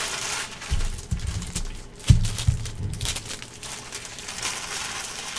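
Trading cards and packs handled on a table, rustling, with a few dull knocks about a second and two seconds in.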